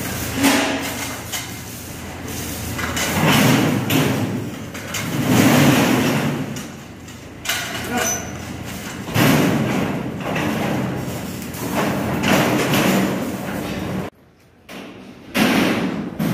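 Heavy steel oven trolley being pushed on its wheels into an industrial oven chamber: rolling rumble with repeated metal thuds and bangs, coming in irregular swells every couple of seconds, broken by a short gap near the end.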